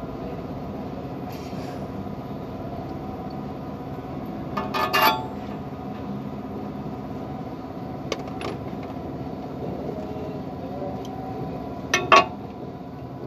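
Metal tools clinking against a truck's clutch assembly: a short cluster of sharp metallic strikes about five seconds in and two more near the end, over a steady low hum.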